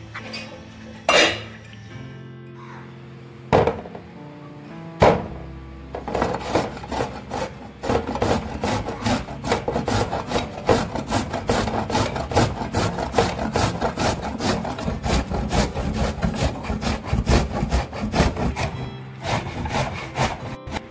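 A carrot being grated on a flat tin grater: quick rasping strokes, several a second, starting about six seconds in, over soft background music. Three sharp knocks come before it, in the first five seconds.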